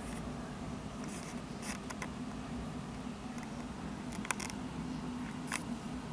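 Steady low background hum with a handful of short, sharp ticks scattered through it, the clearest about four and five and a half seconds in.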